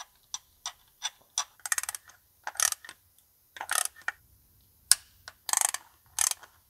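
Hand ratchet clicking in short bursts, some of them quick runs of ticks, as the bolts of an engine's oil pickup tube are tightened. A single sharp click comes about five seconds in.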